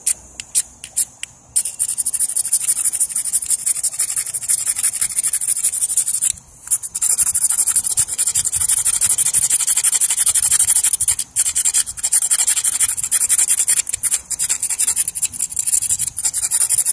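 A steel blade scraping a magnesium fire-starter rod in fast, hard strokes, shaving magnesium onto tinder. It starts with a few separate strokes, then becomes near-continuous rapid scraping that pauses briefly twice.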